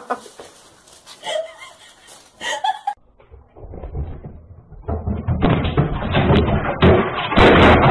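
A run of loud, rapid thumps and clatter picked up by a security camera's muffled microphone. It starts quietly about three seconds in and builds toward the end.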